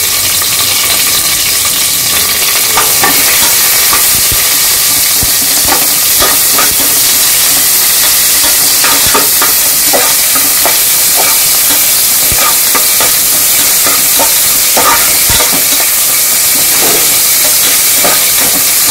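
Sliced onion sizzling in hot oil in an aluminium pressure cooker, a steady frying hiss, while a slotted spatula stirs it with scattered scrapes and knocks against the pot.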